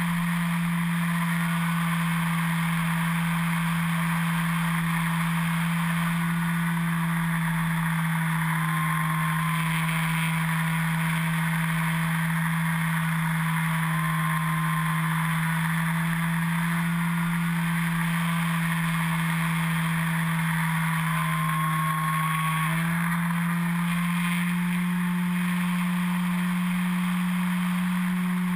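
Electric motor and propeller of an E-flite Carbon-Z Yak 54 RC airplane running steadily in flight, heard from a camera mounted on the plane, with a steady rush of air. The low drone holds one pitch and steps up slightly about three-quarters of the way through.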